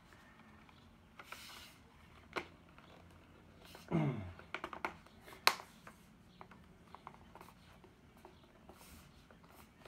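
Hard plastic laptop shell case being handled: scattered clicks and knocks of plastic, with a short creak falling in pitch about four seconds in and the sharpest click about a second and a half later, then light ticks.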